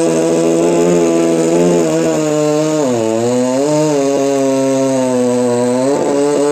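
Chainsaw running at high revs while cutting a coconut tree trunk, its pitch sagging about three seconds in and again near the end as the chain takes load.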